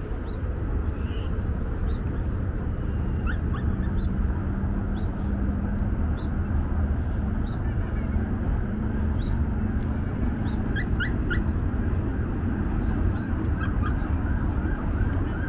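Steady outdoor background rumble, with short high chirps about once a second and a quick run of small repeated calls near the end.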